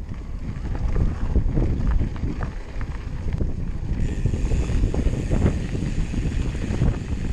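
Wind buffeting the microphone while an e-mountain bike rolls fast down a rough dirt singletrack, with a steady low rumble and frequent small knocks and rattles from the bike over stones.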